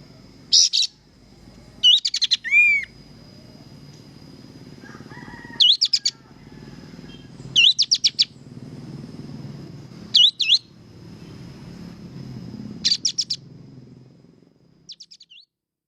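Kapas tembak songbird calling in short bursts of rapid, repeated high chirps, about every two to three seconds, with a thin steady high tone running underneath.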